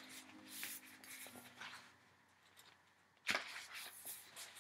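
Paper pages of a picture book being turned by hand: soft rustling, with a louder, crisp flick of paper about three seconds in.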